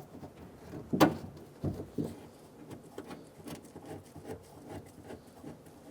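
Light clicks and knocks of a door handle's mounting bracket and bolt being handled and fitted inside a car door, with one sharp click about a second in and a duller knock just before two seconds.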